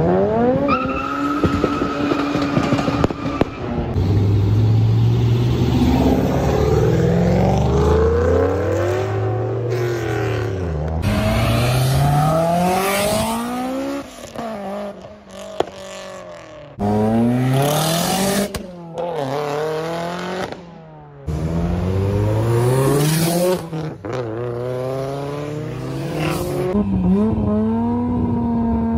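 Tuned performance car engines revving and accelerating hard. The pitch climbs and drops back at each gear change over several separate pulls, and an engine settles to a steady pitch near the end.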